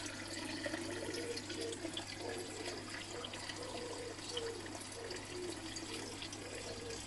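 Water pouring from a spout into the koi pond, a steady splashing.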